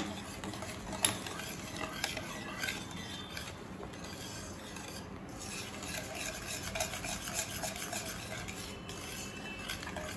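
Wire whisk stirring a milk powder, milk and sugar mixture in a dark coated kadai: a continuous scraping and rubbing of the wires against the pan, with one sharp click about a second in.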